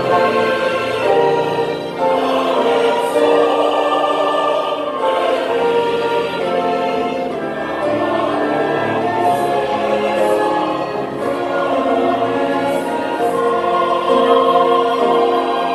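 A large mixed church choir of men's and women's voices singing a hymn in held chords, accompanied by violins.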